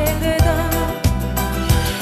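Music: the instrumental backing of a Russian pop song, with a steady beat, between sung lines.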